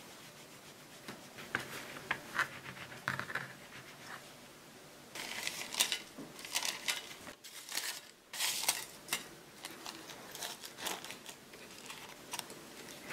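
A kitchen knife sawing through a sponge cake in a few soft scraping strokes, then, about five seconds in, parchment paper crinkling and rustling loudly as it is fitted into a stainless steel cake ring, with softer rustles as the sponge is pressed in near the end.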